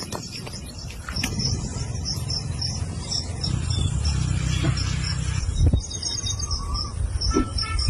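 Outdoor ambience: a steady run of evenly spaced, high-pitched chirps over a low rumble, with a couple of sharp knocks.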